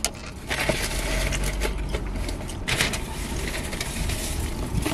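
Low steady hum of a running car heard inside the cabin, with crinkling of paper food wrappers and a plastic coleslaw cup being handled. There is a short louder rustle just under three seconds in.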